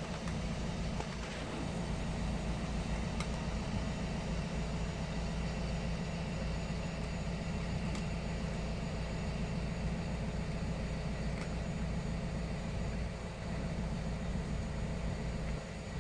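Steady low mechanical hum with a constant low drone, like a running engine or machine.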